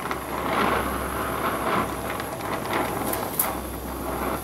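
Brazing torch flame running steadily as it reheats a brazed repair on a clutch rod pin hole that has cooled too far.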